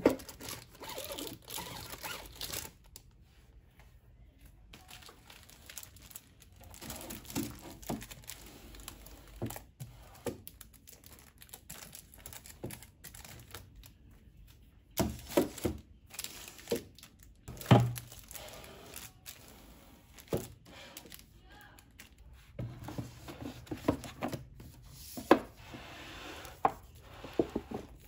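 Plastic wrapping crinkling and tearing while paperback manga volumes are slid along and set down on a shelf, with scattered rustles and a few sharp knocks.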